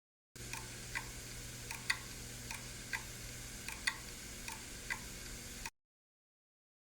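Failing hard disk drive clicking, sharp ticks about twice a second over a low steady hum from the spinning drive, stopping suddenly near the end. This is the classic 'click of death', a sign that the read/write heads cannot read the platters.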